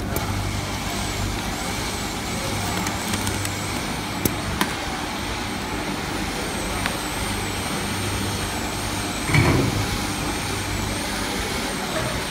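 Hot melt coating machine for PET boxes running: a steady mechanical hum with a faint high whine that wavers up and down, a few light clicks, and one short louder burst about nine seconds in.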